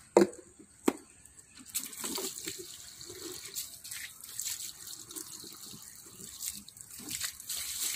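Water running and trickling into a small plastic detergent bottle as it is filled for the pressure washer's foam attachment. Two sharp clicks come in the first second.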